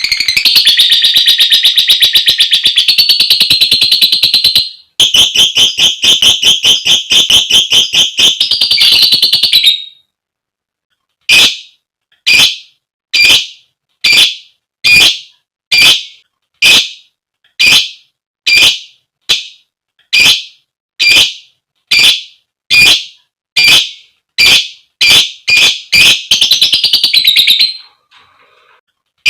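Female lovebird giving a fast, continuous chattering trill (the 'ngekek') for about ten seconds. After a short pause comes a run of loud, shrill single calls about one a second (the 'koek koek' call a hen uses to call a male), quickening near the end into a brief chatter.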